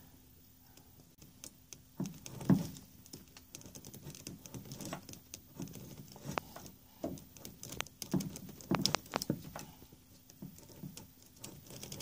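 Fingernail picking at the black locking pin of a yellow airbag connector plug: scattered small plastic clicks and scratches, with a few duller handling bumps, the loudest about two and a half seconds in.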